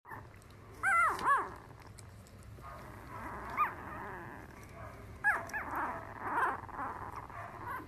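Newborn puppies squeaking: short high whimpers, each rising then falling in pitch. There is a pair about a second in, a single one in the middle, and another pair about five seconds in.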